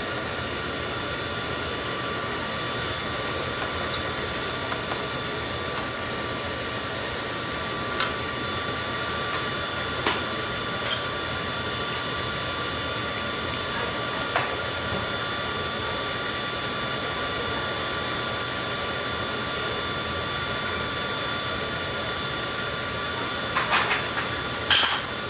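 Old oil-fired boiler with a Beckett burner running steadily, giving an even machine hum with faint steady whining tones. A few light clicks come through it, and a couple of louder knocks near the end. The boiler is running after its faulty pump was dealt with, and is now sounding a lot better.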